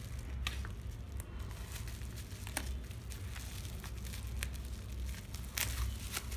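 Plastic bubble wrap crinkling and crackling as it is cut and pulled open by hand, with scattered sharp crackles, the loudest about five and a half seconds in.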